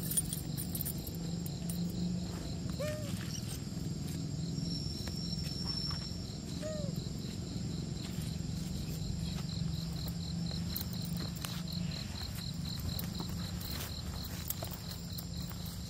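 Forest insects chirping in a steady high pulsing rhythm, about four pulses a second, over a low steady hum.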